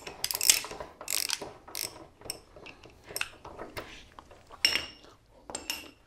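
Socket ratchet clicking in short bursts as it is worked back and forth on the 19 mm hex front axle, unscrewing the axle once it has been broken loose.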